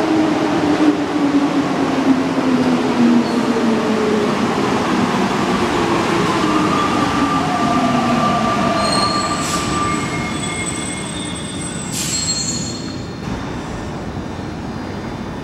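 Alstom NS-93 rubber-tyred metro train running through an underground station, its motor whine falling steadily in pitch as it slows. A steady higher whine follows, then thin high-pitched squeals and two sharp clicks, with the overall noise fading near the end.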